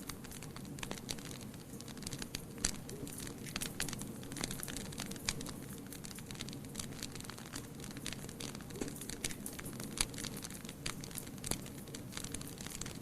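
Fire burning in a fireplace, crackling: irregular pops and snaps over a low steady rush of flame, with a few louder pops about two and a half seconds in and again near ten seconds.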